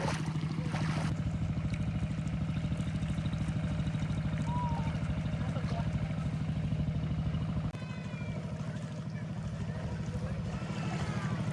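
A small engine running steadily with a fast, even firing pulse, with a brief drop-out about two-thirds of the way through.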